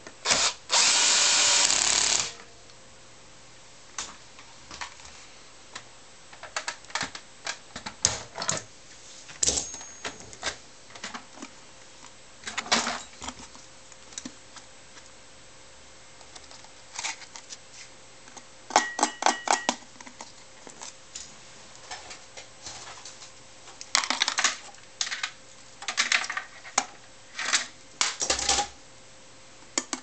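A cordless drill-driver runs for about two seconds near the start, driving a screw into a vacuum cleaner's motor bracket. After that come scattered clicks, taps and rattles from handling plastic housing parts and screws, including a quick run of about ten clicks partway through.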